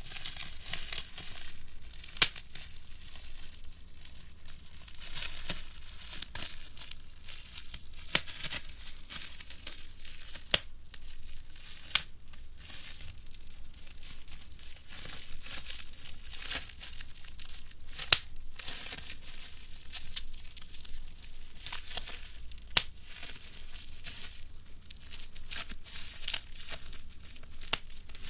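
Plastic bubble wrap being crushed and twisted by hand: a steady crinkling of the plastic with sharp pops every few seconds as single bubbles burst.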